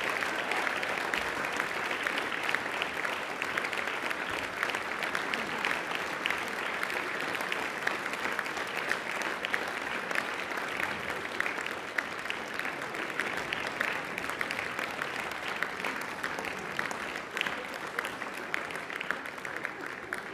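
Audience applauding: a dense, steady clatter of many hands clapping that thins out toward the end.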